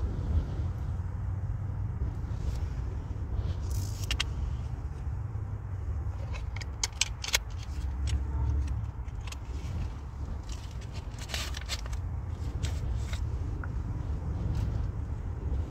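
Steady low rumble of strong wind buffeting a parked car, heard inside the cabin. Over it, scattered clicks and light rattles of small makeup containers being handled, the sharpest a little past halfway.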